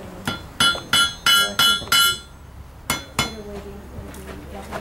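Blacksmith's hammer striking red-hot iron on an anvil, each blow ringing out: six quick blows in about two seconds, then two more a little after the three-second mark.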